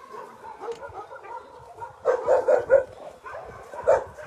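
Dogs barking and yelping in short bursts, with a quick run of four barks about two seconds in and another loud bark near the end.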